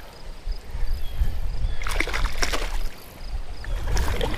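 Wind buffeting the microphone with a low rumble, and water splashing and sloshing a few times, about two seconds in and again near the end.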